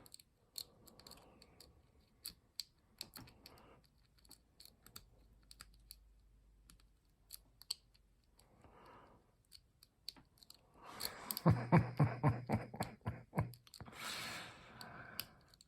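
Lock pick clicking and scraping against the pins inside a small pin-tumbler lock: scattered light clicks, then a dense run of rapid rattling clicks about two-thirds of the way in as a worm rake is worked in and out of the keyway.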